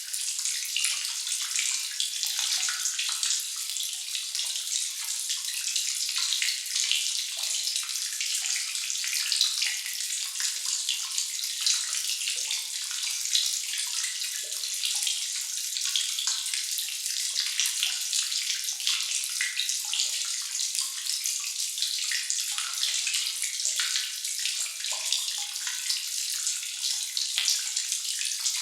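Water dripping and trickling in a sewer cave: a dense, continuous patter of many drips over a steady hiss of running water, with scattered drops landing as short low plops.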